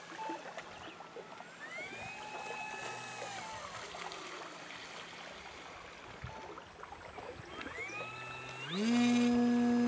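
Electric motor and propeller of an RC Carbon Cub SS floatplane whining, rising in pitch and falling back as the throttle is worked, then rising near the end into a louder steady whine at full throttle for the takeoff run on the water, on reduced 4S battery power.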